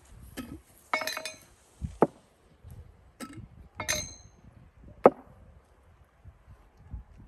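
Empty glass jars clinking and being set down on a table: a handful of separate sharp clinks and knocks, two of them with a short glassy ring about a second and about four seconds in, and the sharpest knock about five seconds in.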